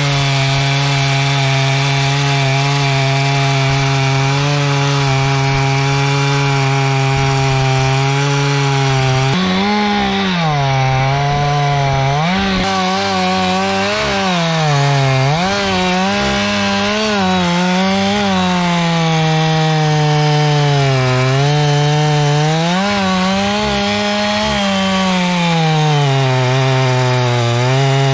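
Two-stroke chainsaw cutting wood. Its engine note holds steady for about nine seconds, then rises and dips again and again as the chain bites and frees in the cut.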